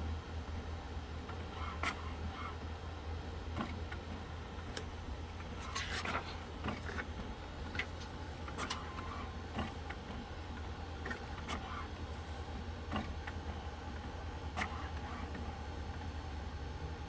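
HP OfficeJet Pro 8710 inkjet printer running its printhead alignment: a steady low hum with irregular mechanical clicks and knocks every second or two, busiest about six seconds in.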